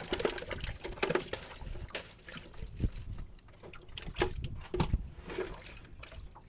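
Water splashing with irregular knocks and clatters as a freshly caught small catfish is put into a container of water in the boat.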